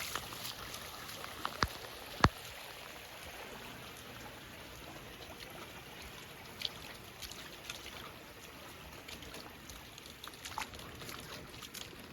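Storm runoff water trickling and running steadily, with two sharp clicks about two seconds in.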